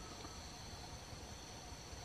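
Faint, steady insect chorus: several thin, high-pitched tones held without a break.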